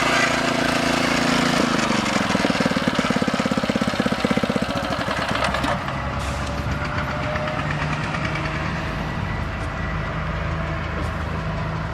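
Engine of an earth auger drilling machine running. Its pitch drops about a second and a half in. A fast, even pulsing follows until about 5 s in, then it settles into steady running.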